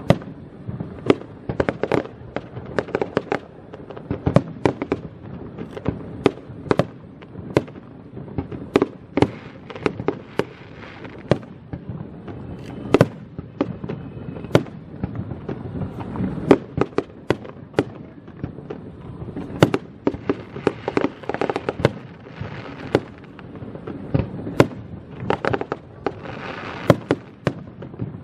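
Fireworks going off in a dense barrage: many sharp bangs and cracks, several a second, over a continuous rumble of bursts.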